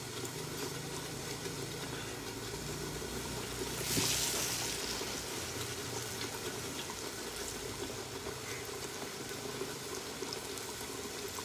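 Chili sambal simmering under a glass lid in a wok over a gas burner: a steady bubbling hiss, with a louder burst of hissing about four seconds in.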